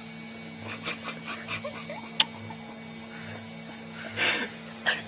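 A baby's mouth noises and small squeaks while sucking on a sour lemon slice: a quick run of short breathy sounds, one sharp click about two seconds in, then two more breathy bursts near the end.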